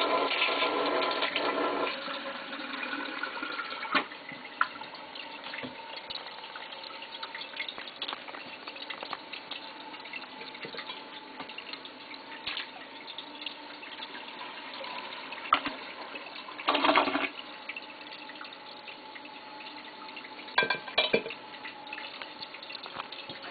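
Kohler Wellworth toilet flushing: the loud rush of the flush dies down about two seconds in, leaving a steady hiss of running water with a faint held whistle-like tone as it refills. A few sharp knocks and one short burst of noise break in along the way.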